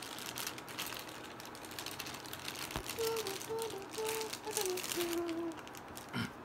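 Clear plastic packaging bags crinkling and rustling as microphone parts are handled and pulled out. About halfway through, a person hums a few short notes that fall at the end.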